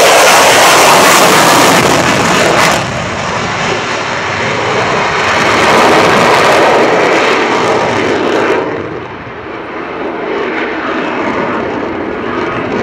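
Lockheed Martin F-22 Raptor's twin Pratt & Whitney F119 turbofan engines at full power overhead as the jet manoeuvres. The noise is loudest for the first few seconds, dips, swells again around the middle, then falls off about two-thirds of the way through as the jet turns away.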